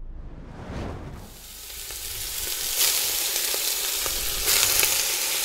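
Mixed minced meat sizzling as it hits hot oil in a cast-iron Dutch oven. The sizzle starts about a second in and grows louder about three seconds in, then again near the end as more meat goes into the pot.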